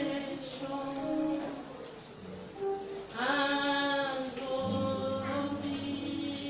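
A group of voices singing together, holding long sung notes over a steady low accompaniment.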